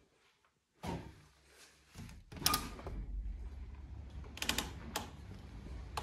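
Balcony door being opened: a knock about a second in, then sharp clicks and knocks from the handle and frame at about two and a half and four and a half seconds. A steady low outdoor rumble comes in at about two seconds and carries on.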